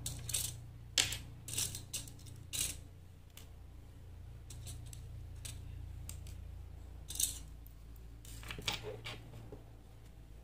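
Small metal earring findings, a jump ring and an earring hook, being handled and fitted, giving about a dozen light scattered clicks and clinks, bunched at the start and again late on.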